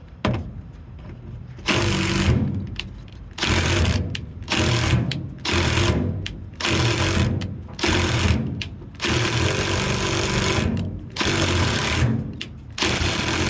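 Power drill run in about nine short bursts, backing out rusted bolts and working them back and forth to break the rust free.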